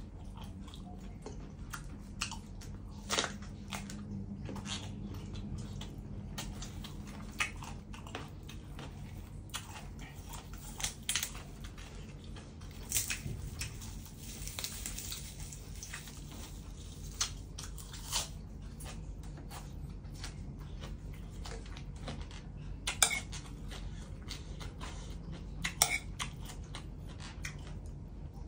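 Close-up eating sounds: chewing raw shrimp laab and fresh vegetables, with many short scattered clicks and crunches over a steady low hum. A spoon clicks against the plate near the end.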